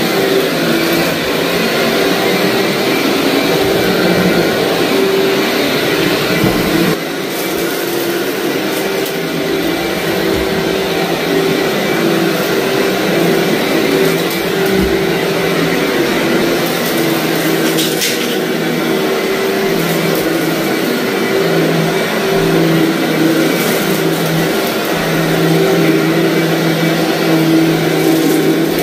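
Commercial upright vacuum running steadily while it is pushed over heavily soiled carpet, picking up grit and debris with a crunching sound. Its motor hum wavers in pitch as it moves, and it dips briefly about seven seconds in.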